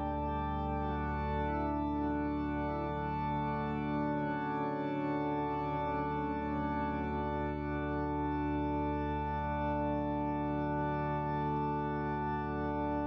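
Organ music: slow, sustained chords held for several seconds each, changing gently, at an even level.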